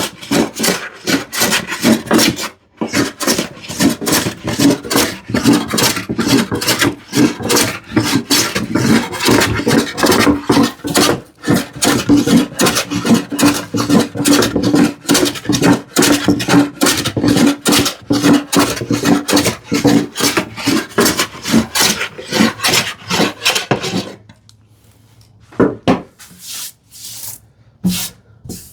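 Hand plane taking quick, short rasping strokes across the grain of a glued-up wood panel, several strokes a second, levelling the surface. The strokes stop about 24 seconds in, followed by a few light knocks.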